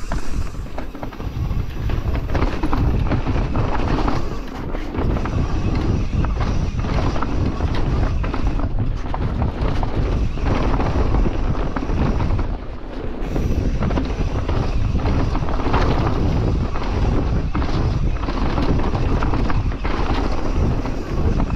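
Mountain bike ridden fast down a dirt flow trail: tyres running over the ground and the bike rattling and knocking over bumps, with wind buffeting the microphone.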